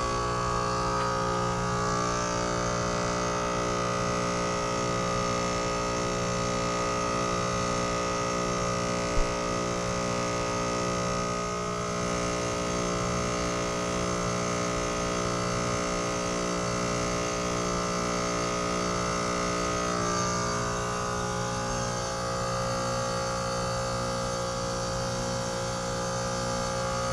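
2018 Trane XR14 heat pump outdoor unit running in its defrost cycle: a steady hum made of several steady tones, with a brief click about nine seconds in.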